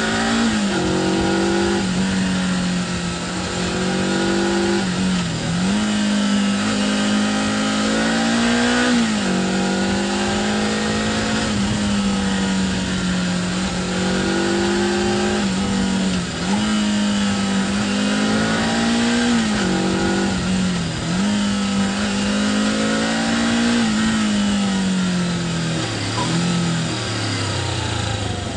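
Suzuki GS 500's air-cooled parallel-twin engine pulling the bike along under steady throttle, with wind rush. The revs dip and climb again several times through the bends, then fall away near the end as the bike slows.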